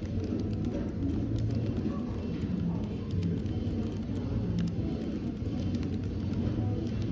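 Cafe background ambience: a steady low murmur of room noise and distant chatter. Irregular light clicks of keyboard typing sound over it.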